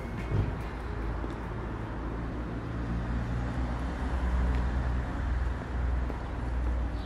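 Outdoor ambience: a steady low rumble with a haze of noise above it, swelling slightly about four seconds in.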